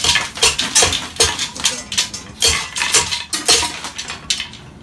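Chain hoist being cranked to lift the heavy generator section, with a string of irregular metallic clinks and rattles from the chain and ratchet, about two to three a second, easing off near the end.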